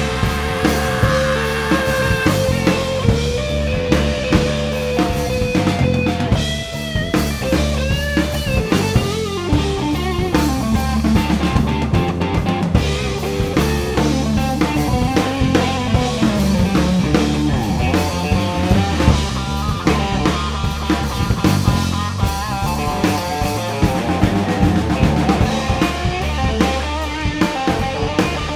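Blues-rock power trio playing an instrumental passage with no vocals: electric guitar playing held and bending notes over bass guitar and a drum kit.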